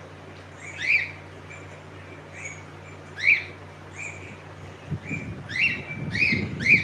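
Cockatiel chirping: short, rising chirps repeated every couple of seconds, coming three in quick succession near the end, with softer short notes between. A low muffled noise comes in for the last two seconds.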